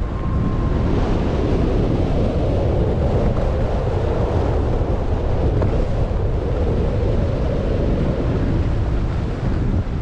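Wind rushing over the microphone of a skier's camera while skiing downhill, mixed with the hiss of skis sliding on groomed snow. It is loud and steady throughout.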